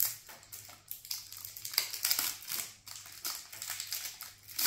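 Plastic shrink-wrap crinkling and crackling in irregular bursts as it is picked and peeled off a deck of game cards by hand.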